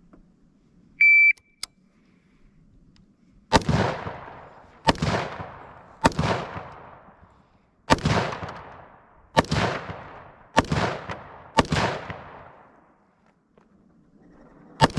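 A shot timer's short start beep, then eight single gunshots fired one to two seconds apart, each trailing off in a long echo: a timed string of fire on a range target.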